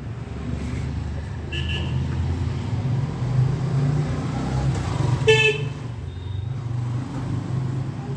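Road traffic: a steady low engine rumble from passing vehicles, with one short vehicle-horn toot about five seconds in.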